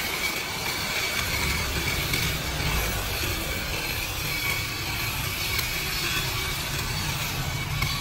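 Kutan mini cordless hedge trimmer running steadily with a high whine, its reciprocating long blade cutting through the leaves and twigs of a hedge.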